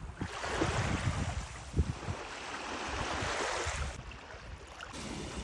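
Baltic Sea waves washing onto the shore: a rush of surf that swells up at once and dies away about four seconds in. Irregular low thumps of wind buffet the microphone.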